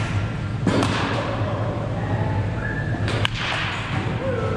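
Baseball bat hitting pitched balls in an indoor batting cage: two sharp cracks, about a second in and about three seconds in, ringing on in the large hall over a steady low hum.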